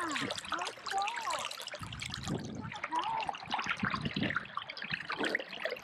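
Water trickling and dripping off a kayak paddle, with small splashes as the blades work the canal water; a busy, crackling patter of drips.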